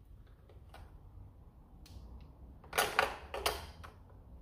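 AA batteries being pressed into a plastic toy blaster's battery compartment: a few faint clicks, then a short burst of clicks and rattles about three seconds in.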